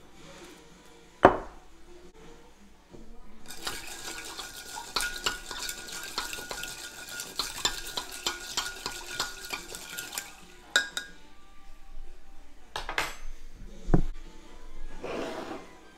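Hard objects clinking and knocking, like ceramic, glass or metal handled on a hard surface. There is a sharp knock about a second in, then several seconds of dense scraping and splashing noise dotted with small clicks, and a few more clinks and a thump near the end.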